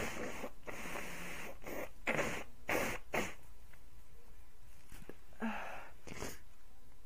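A person blowing their nose: several breathy, noisy blows in the first three seconds, the first two longer, then two shorter ones after a pause.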